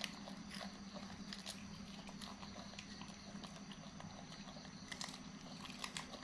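Young monkeys biting and chewing raw green bean pods: a few faint, scattered crisp snaps and crunches over a steady background hum.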